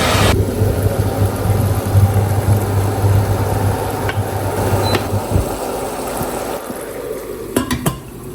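Sugar syrup boiling in a pot on the stove, with a steady low hum that stops about five seconds in. A few light clicks follow near the end.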